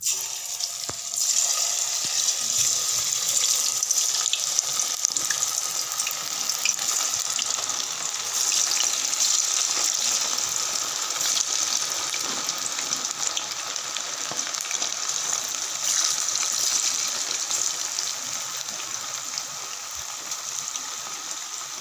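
Marinated chicken pieces deep-frying in hot oil: a dense sizzle full of small crackles. It starts suddenly as the pieces go into the oil and eases a little toward the end.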